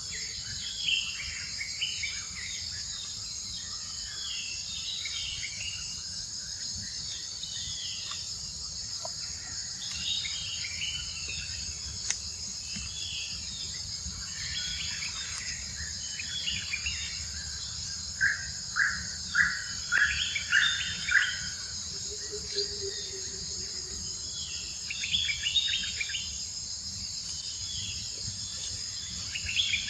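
A steady high-pitched drone of insects, crickets or cicadas, over which short high chirping calls come and go. The loudest is a quick run of about six calls a little past the middle.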